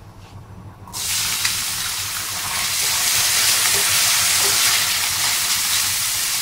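Chopped onions hitting hot oil in a stainless steel frying pan: a sudden loud sizzle about a second in, then steady frying while a spatula stirs them, with a few light clicks against the pan.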